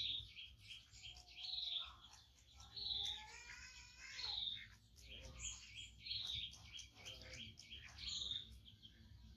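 A bird calling over and over: a short high note with a quick rattling trill, repeated about every one and a half seconds, six or so times.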